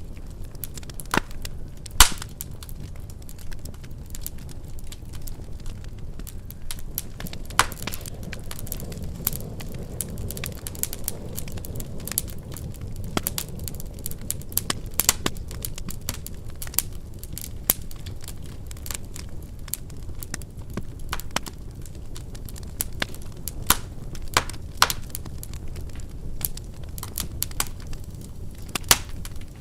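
Wood fire burning in a fireplace: a steady low rumble of flames with irregular sharp crackles and pops from the burning logs, the loudest pop about two seconds in.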